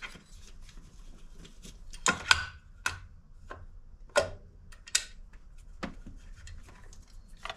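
Scattered clicks and knocks as a distributor is wiggled and turned while being lowered into the engine, failing to drop into place because its shaft is not lining up with the oil pump shaft.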